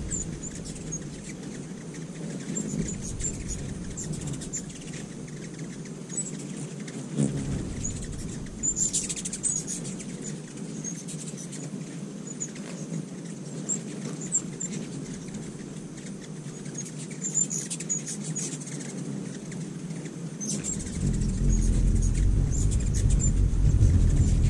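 Ruby-throated hummingbirds whirring and chipping at busy feeders: many short, high chip calls, with a squeaky chatter about nine seconds in. The low wing hum grows much louder near the end as a bird hovers close.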